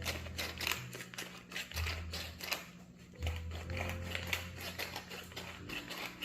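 Coarse-ground pepper being shaken or ground into bowls of batter and flour: rapid, irregular light clicks and scratches, with a low hum coming and going underneath.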